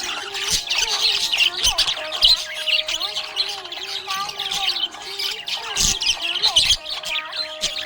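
Budgerigars chattering and chirping in a dense, continuous stream, over background music with a slow melody.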